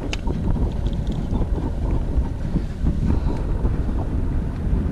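Wind buffeting the microphone on an open boat: a steady, uneven low rumble.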